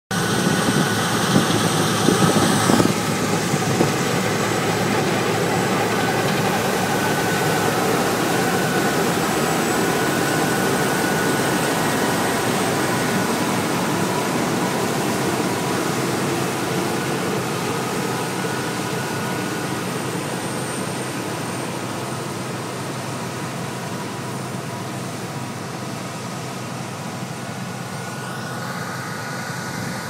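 Claas combine harvester running at work while cutting wheat, a steady dense mechanical noise with a thin high whine above it. Loudest for the first three seconds or so as it passes close, then it grows slowly quieter as it moves away.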